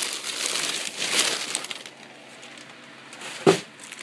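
Padded paper packing material rustling and crinkling as it is handled and pulled aside, for about the first two seconds. Near the end, a single sharp thump, the loudest sound.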